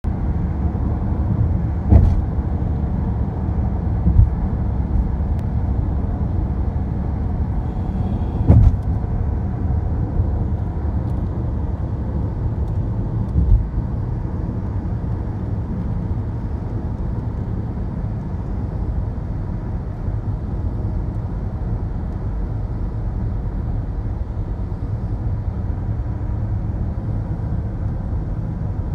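Steady low rumble of road and engine noise inside a car cruising on a highway, broken by four short thumps in the first half.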